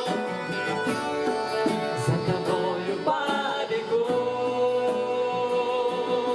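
Worship song music: instruments playing on between sung lines, with held notes and some singing.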